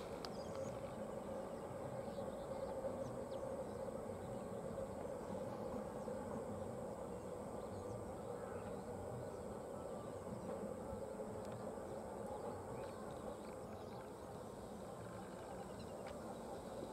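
Faint outdoor ambience beside a railway line: a steady low hum with scattered light ticks, the hum easing off in the second half.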